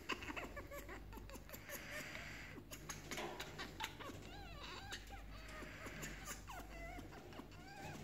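African grey parrot vocalising excitedly: a string of short whistled chirps and gliding squawks, mostly in the second half, over many sharp little clicks.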